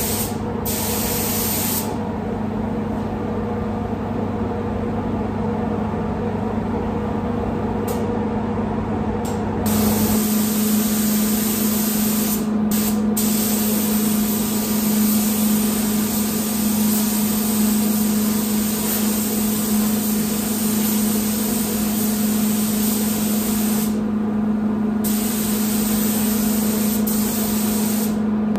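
Gravity-fed spray gun hissing as clear-coat lacquer is sprayed onto a car bonnet. The hiss stops for several seconds about two seconds in, and briefly a few more times, as the trigger is released. Underneath runs the steady low hum of the spray booth's ventilation.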